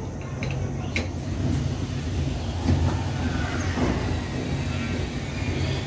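Miyako gas stove burner just lit and running, a steady low rumble with a few light clicks and a knock.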